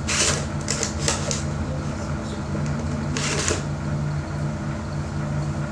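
Rustling and crinkling of a surprise-toy package being handled and opened, in a few short bursts, over a steady low hum.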